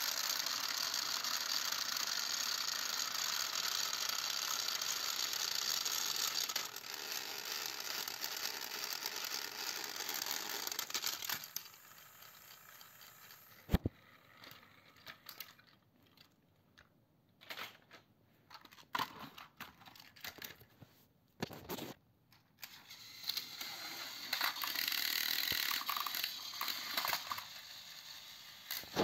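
Motors and plastic gears of battery-powered Thomas & Friends toy locomotives on plastic track, running with a steady ratcheting whir for about eleven seconds and then stopping. A sharp click follows a couple of seconds later, then scattered clicks and knocks, and the whir picks up again for a few seconds before fading near the end.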